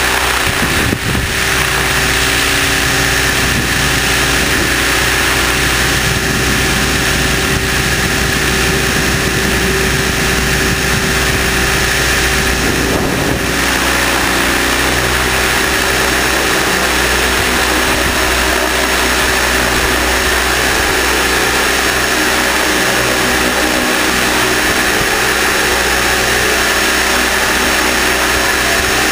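Align T-Rex 600ESP electric RC helicopter in flight, heard from a camera on its airframe: steady whine of the motor and drive gears over the noise of the spinning rotor. The low part of the sound shifts about 13 seconds in.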